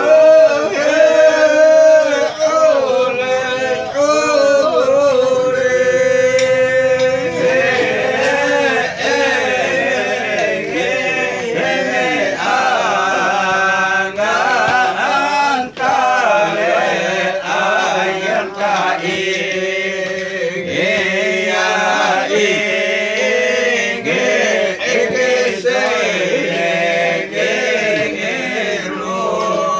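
A group of voices chanting a melodic song together.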